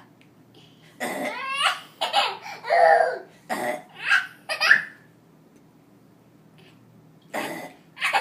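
A baby laughing: a run of short giggles and squeals over about four seconds, then a pause and another short laugh near the end.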